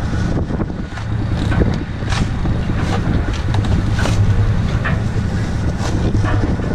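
An engine running steadily with a low hum. Over it come scattered knocks and thumps of cardboard boxes being lifted off a pallet and handed along on a boat deck.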